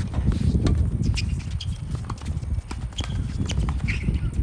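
Tennis balls struck by racquets in a doubles rally: a serve, then returns and volleys, heard as several sharp pops at irregular intervals. Under them runs a steady low rumble.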